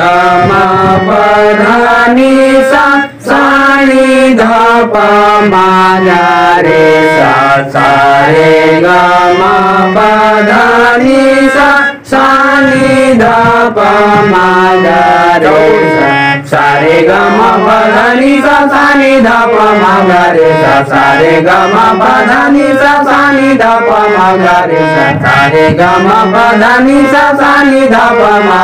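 Hand-pumped harmonium playing a continuous reedy melody, running up and down through the notes again and again like practice scales.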